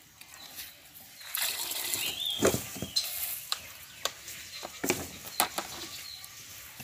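Calves drinking from a plastic basin of liquid feed while it is stirred by hand. The liquid sloshes and splashes, with a louder wash of splashing in the first half and scattered sharp knocks and clicks of muzzles and hands against the basin.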